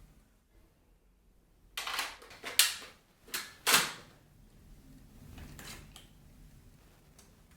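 Several sharp plastic clicks and knocks bunched over about two seconds, starting about two seconds in, then faint handling: parts of a Dyson V11 cordless vacuum being handled and unclipped or clicked into place.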